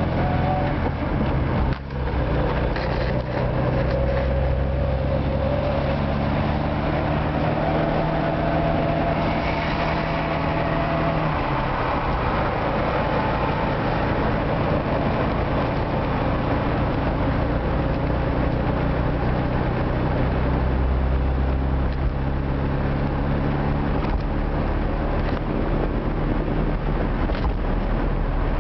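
A Moskvich car's engine and road noise heard from inside the cabin while driving at a steady pace. The engine note shifts a few times, with a brief drop in level about two seconds in.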